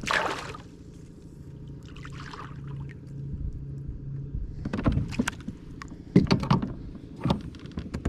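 Kayak noises: a short splash of water at the start and a fainter one about two seconds in, then a series of sharp knocks and thumps against the boat, over a steady low hum.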